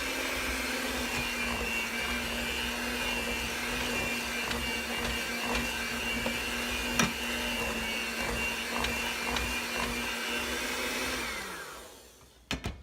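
Electric mixer motor running steadily while mixing a bread batter, then switched off near the end, its whine falling away as the motor spins down.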